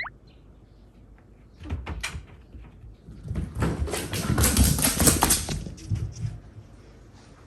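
A cat galloping and scrambling across the floor: a flurry of quick thudding paw-falls and knocks, loudest in the middle and dying away near the end.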